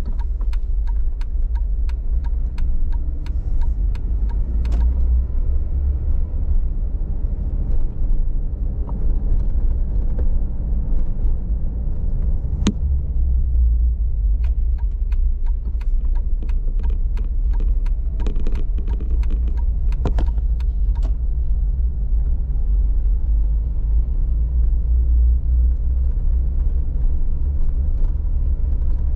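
A car driving slowly in town, with a steady low rumble of engine and road noise. There is a run of quick sharp clicks in the first few seconds and another about two-thirds of the way through.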